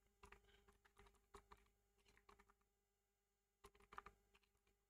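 Faint computer keyboard keystrokes: scattered single taps, with a quick run of keys a little before the end.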